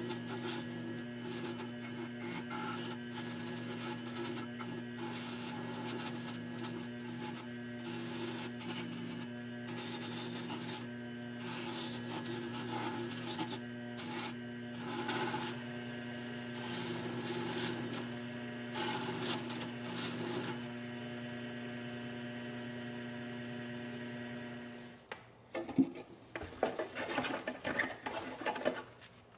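WEN benchtop woodworking lathe motor running steadily with an abrasive wheel, while a small metal toy-truck part is pressed against the spinning wheel in repeated strokes, each giving a grinding rasp. The grinding stops about 20 seconds in and the motor hums on alone; a few seconds from the end it gives way to clicks and rustling of small parts being handled.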